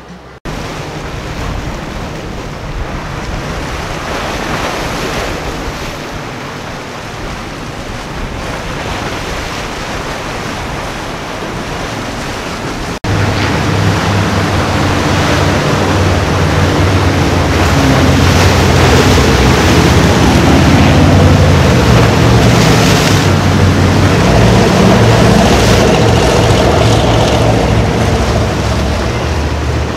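Wash of water and wind on the microphone, then, after an abrupt cut about thirteen seconds in, a Fountain powerboat's engines running loud through choppy inlet waves, their pitch rising and falling as it passes.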